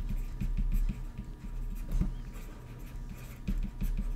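Stylus writing on a tablet screen: a quick, irregular run of light taps and scratches as words are handwritten.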